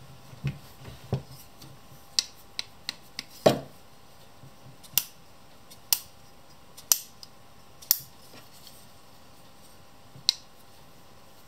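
Old steel revolving leather punch pliers being handled: a series of sharp metal clicks, about one a second for a stretch, as the turret of punch tubes is turned from one tube to the next, with a louder knock about three and a half seconds in and a couple of duller knocks near the start.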